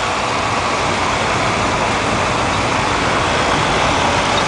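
A line of tractors driving by on the road, their engines running in a steady, loud noise that builds slightly over the first second.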